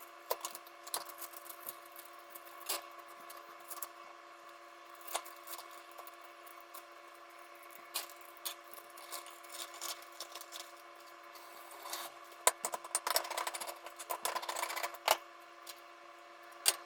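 Kitchen utensil clicking and scraping against cookware, busiest from about twelve to fifteen seconds in, over a steady electrical hum.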